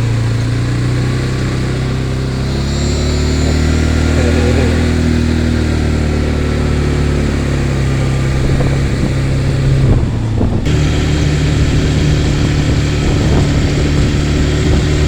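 ATV engine running steadily while carrying riders, its pitch drifting gently up and down with the throttle.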